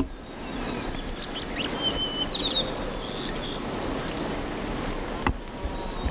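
Small birds chirping a few times in the woods over a steady outdoor background hiss, with a single sharp click a little past five seconds in.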